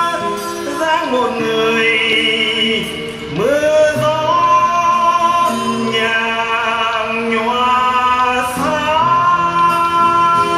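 A man singing a slow Vietnamese ballad to acoustic guitar accompaniment, in long held notes that slide up and down in pitch.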